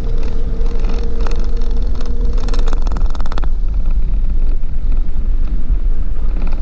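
Vehicle driving on a rough gravel road, heard from inside: a steady low rumble of engine and tyres, with a faint steady whine for the first two and a half seconds and a rattling buzz about two and a half seconds in that lasts about a second.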